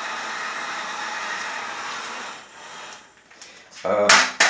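Electric hot-air blower running steadily, drying the dampened wood of a guitar neck joint to speed up the raising of the grain before gluing. It switches off and winds down a little over two seconds in.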